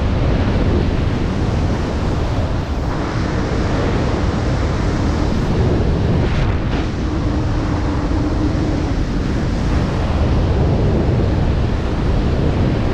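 Freefall wind rushing over a skydiver's camera microphone: a loud, steady rush of noise, heaviest in the low end.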